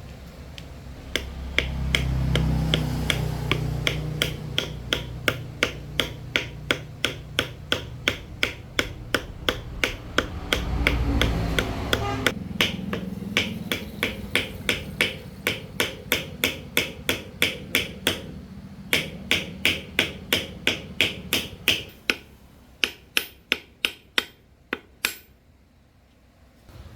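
Sharp tapping strikes, about three a second, as of a hammer on a metal part, keeping an even beat with a short pause about two-thirds of the way through. The strikes become sparser near the end. A low rumble sounds twice under the first half.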